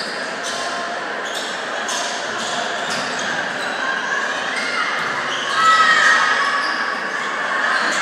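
A basketball bouncing on a hardwood gym floor over a steady murmur of crowd voices echoing in the hall. The sound gets louder for a moment about five and a half seconds in.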